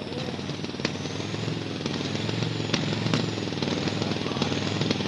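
Engine of a pulling tractor running at the start line, putting out heavy smoke, with rapid, rough firing pulses that slowly grow louder. A few sharp clicks sound over it.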